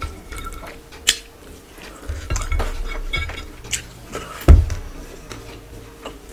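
Fingers scraping and pinching food off a dinner plate, with light clinks and clicks of the plate; a dull thump about four and a half seconds in is the loudest sound.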